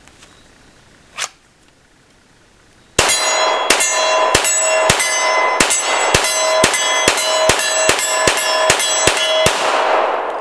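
Glock 21 SF .45 ACP pistol fired in controlled rapid fire, a dozen or more shots at about two a second, with an AR500 steel target ringing a clear metallic tone from the hits. The ringing carries on and fades after the last shot.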